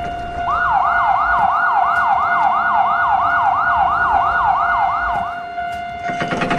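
Siren sound effect: a fast, repeating whoop that sweeps up and falls back about three times a second, starting about half a second in and stopping about five seconds later, over a steady high tone.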